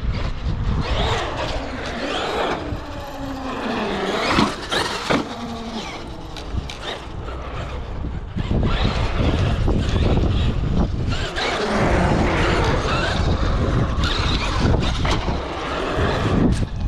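Traxxas X-Maxx electric RC monster truck driving on concrete: its brushless motor whines, rising and falling in pitch with the throttle, over tyre rumble, with a couple of sharp knocks about four to five seconds in.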